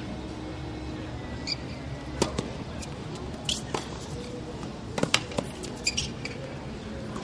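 Tennis shoes squeaking on a hard court, mixed with sharp knocks of ball strikes and bounces, coming irregularly over a steady low background noise.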